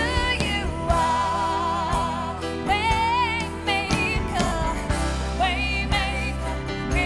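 Contemporary Christian worship song: a lead singer holding wavering notes over a band with a steady low bass and occasional drum hits.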